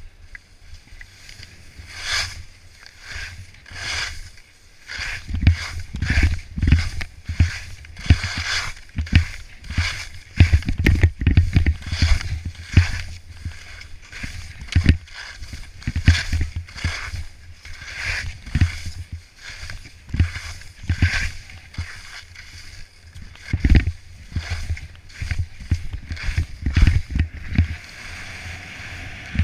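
Skis scraping and chattering on snow through a mogul run, with short turn-by-turn scrapes one or two a second and heavy low thumps as the skis hit the bumps, thickest about a third of the way in and again near the end.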